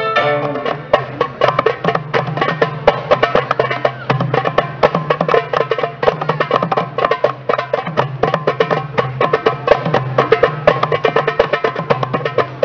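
Live Turkish-style band music: hand drums playing a quick, even beat, with a plucked saz, over a steady low drone. The long held melody notes drop out right at the start, leaving a percussion-led passage.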